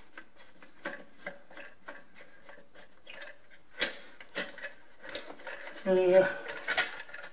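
A screwdriver backing out a long mounting screw from an old doorbell chime, making a run of small clicks about three a second, then a few louder clicks and knocks about four seconds in.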